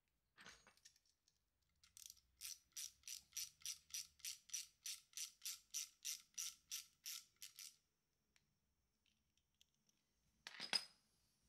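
Hand ratchet clicking at an even pace, about three clicks a second for some six seconds, as it tightens the brake pad holding pin into a scooter's front brake caliper. A brief faint handling noise near the end.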